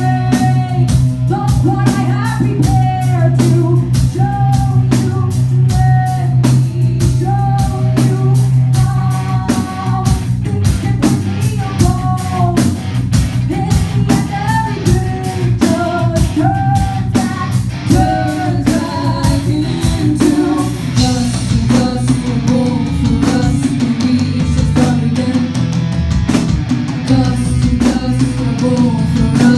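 Rock band playing live, with drum kit, bass, electric guitar and a sung vocal line over a steady beat. About two-thirds of the way through, the vocal line fades out and the guitar sound grows denser and heavier.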